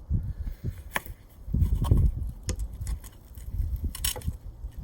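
Scattered knocks and clunks of a geode being handled and repositioned in a clamp, with the heaviest thumps about two seconds in; the angle grinder is not running.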